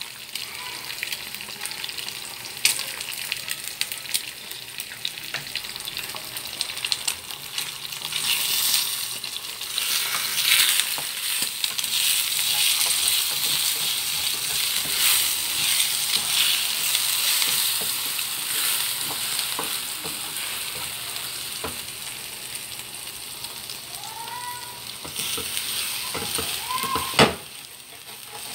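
Eggs sizzling in hot oil in a nonstick frying pan while a wooden spatula breaks them up and stirs them, with scraping and light taps against the pan. The sizzle grows louder about a third of the way in and eases off later. There is one sharp knock near the end.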